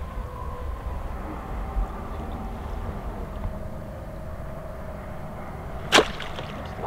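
A homemade frog spear thrown at a bullfrog in a shallow canal, landing with one short, sharp hit about six seconds in, over a steady low rumble.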